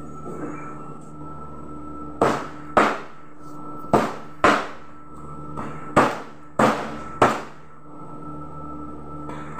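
Meat cleaver chopping through pieces of fried whole chicken on a plastic cutting board: seven sharp chops, mostly in pairs about half a second apart, starting about two seconds in and ending a little after seven seconds.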